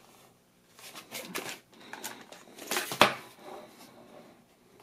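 Plastic keyboard being handled: rustling and scraping with one sharp clack about three seconds in.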